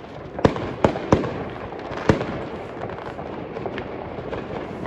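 Fireworks and firecrackers going off all around: four sharp bangs in the first two seconds or so, then scattered smaller pops over a steady din of many more explosions.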